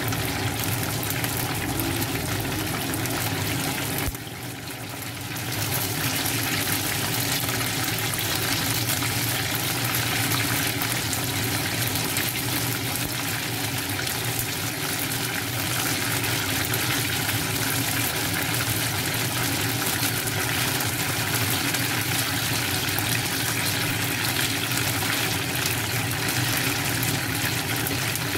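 Chicken wings frying in hot oil in a pan, the oil sizzling and bubbling steadily. The sizzle drops briefly about four seconds in.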